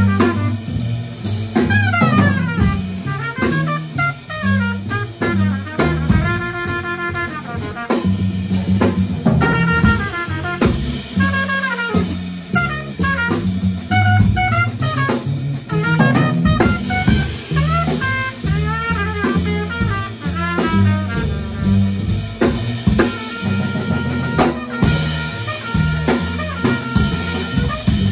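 Live small-group jazz: a trumpet solos in fast, winding runs over plucked upright bass and a drum kit.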